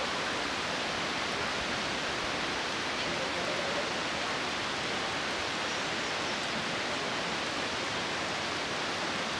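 Steady, even rushing noise with no change in level.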